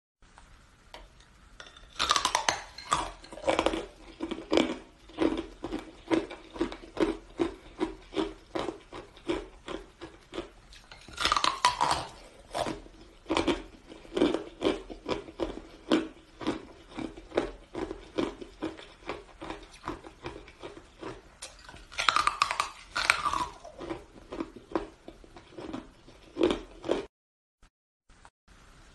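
Hard ice being bitten and chewed: three loud cracking bites about ten seconds apart, each followed by steady crunching chews at roughly two a second. The crunching stops about two seconds before the end.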